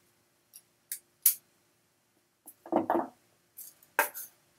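Wire cutters snipping through thin 20 gauge craft wire: a couple of sharp clicks about a second in, the second one the loudest. Then duller knocks and handling sounds on the wooden tabletop as the cutters are set down.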